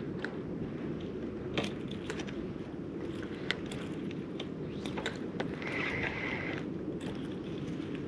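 Handling noise from a fishing rod and spinning reel held in gloved hands: scattered, irregular crunchy clicks over a steady low rumble of wind on the microphone. A brief hiss comes about six seconds in.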